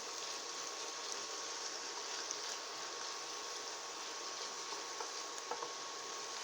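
Swiss chard stems and onions sizzling in olive oil in a pan, a steady hiss with occasional small pops, over a faint steady whine.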